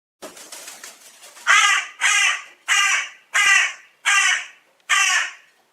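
A crow cawing: a few softer calls, then six loud harsh caws in a steady series.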